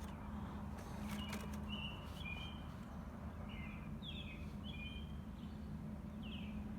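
Small birds chirping, a string of short chirps, over a low steady background hum.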